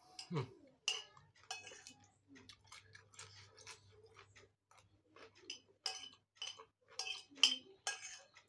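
Close-up eating sounds: a metal spoon clicking and scraping against a plate between mouthfuls, with chewing of raw cucumber and papaya-stem rujak. The clicks come in an irregular run, thickest and loudest near the end as the last of the plate is scraped up.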